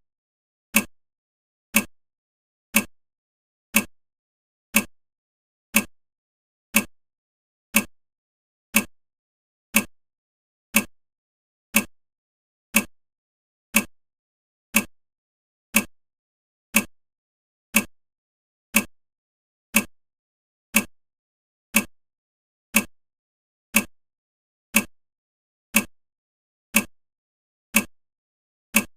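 Countdown timer ticking like a clock, one short, sharp tick every second, each marking a second counted down.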